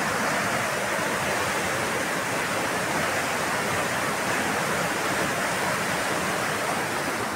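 Small creek in flood after heavy rain, its swollen flow rushing steadily past a bridge.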